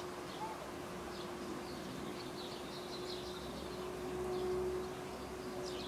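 Small birds chirping outdoors, with a rapid trill of high notes in the middle and a quick high call at the start and again near the end, over a steady faint hum.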